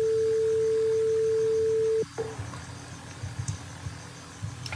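A steady, single-pitched electronic beep from the simulated microwave oven's buzzer, sounding as the cooking timer is stopped, cutting off sharply about two seconds in.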